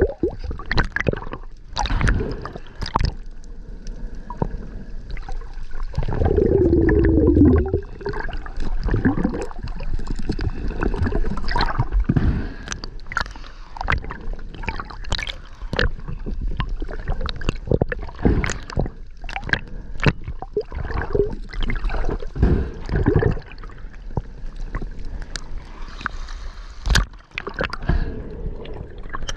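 Underwater sound heard through a camera housing: scattered sharp clicks and knocks throughout, with gurgling air bubbles. A louder burst of bubbling comes about six seconds in.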